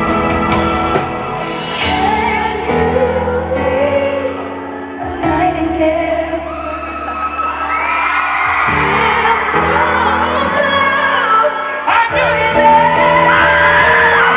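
A live female pop vocal sings a slow ballad over sustained band chords, recorded from the audience in a large arena hall, with whoops from the crowd near the end.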